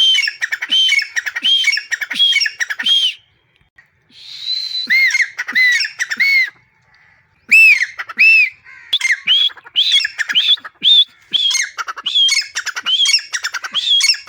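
Francolin (teetar) calling loudly: a repeated series of ringing, arched notes, about two a second, in three bouts broken by short pauses, with a rougher hissing note early in the second bout.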